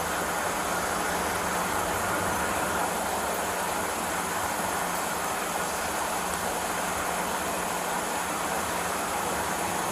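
Steady road noise from vehicles, an even hiss and hum that holds at the same level without breaks.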